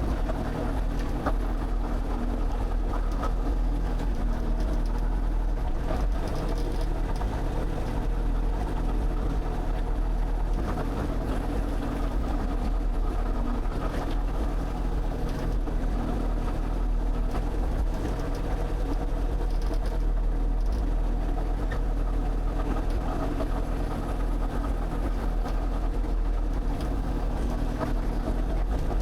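Excavator's diesel engine running at a steady speed, a continuous low drone with a few faint knocks over it.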